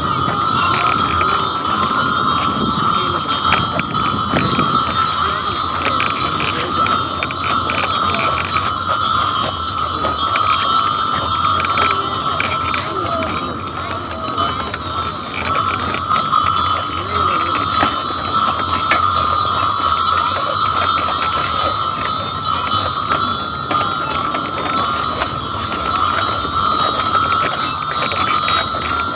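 Steady jingling of bells on a team of draft horses' harness as they pull a wagon, over a running clatter of hooves and wagon rattle on packed snow.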